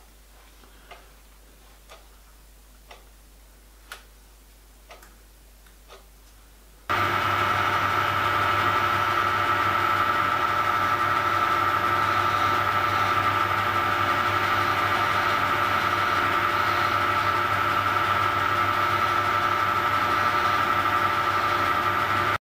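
Faint ticks about once a second, then a small metal-working lathe switches on about seven seconds in and runs steadily with a high whine and a low hum, while a hand file rounds the corners of the spinning MDF buffer discs. The sound cuts off abruptly near the end.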